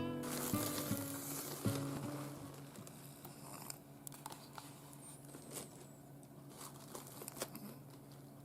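Acoustic guitar background music: a few plucked notes ring out and fade over the first two seconds or so, followed by a quiet stretch with scattered faint clicks.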